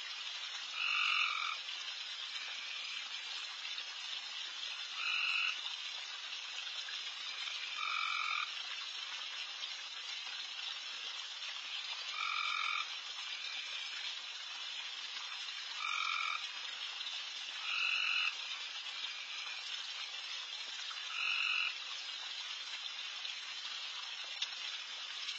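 Loud, dense chorus of many frogs calling together without a break. A louder half-second frog call stands out from it every three to four seconds, seven times in all.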